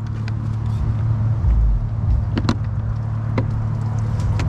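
A steady low engine hum, with a few sharp clicks and knocks: two close together about halfway through, then one more, and another near the end.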